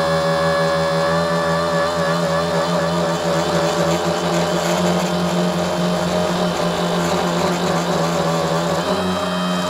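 Tricopter's three electric motors and propellers buzzing in flight, heard close up from its onboard camera. The whine wavers in pitch as the throttle changes, drops slightly at the start and shifts again about nine seconds in.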